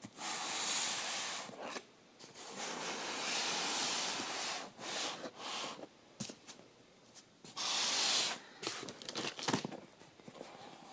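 Sealed cardboard shipping box being handled and turned over: several stretches of cardboard rubbing and scraping, with a couple of sharp knocks.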